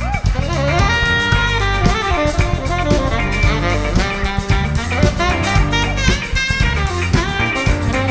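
Tenor saxophone playing a short solo over a live band groove of drum kit, bass and electric guitar.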